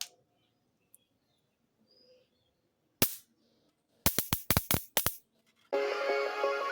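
Electric mosquito bat sparking: one sharp crack about three seconds in, then a quick run of about six snapping cracks. Background music starts near the end.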